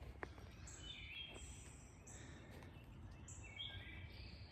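Faint birdsong: several short, high, whistled phrases repeating over quiet outdoor background noise.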